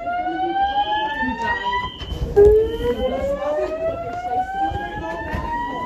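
School fire alarm sounding a whoop tone: a rising sweep that breaks off about two seconds in and starts climbing again from low, with a fainter high tone pulsing above it.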